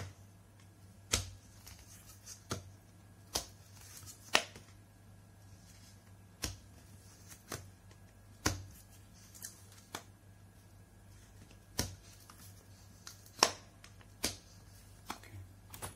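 Sharp, irregular plastic clicks and snaps, about a dozen of them, as a small screwdriver pries the frosted plastic dome of an LED bulb away from its glued casing.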